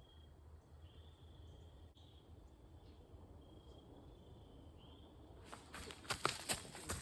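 Faint insects trilling in short, repeated calls. About five and a half seconds in, a quick series of sharp clicks and rustles starts and gets louder.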